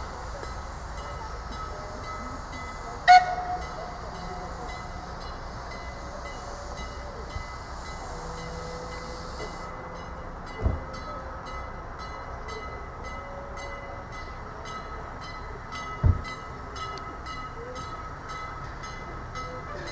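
Prussian T3 steam tank locomotive running slowly, with a steady hiss of steam that cuts off about ten seconds in, followed by quick regular ticking, about three a second. A single sharp, loud click about three seconds in, and two dull thumps later on.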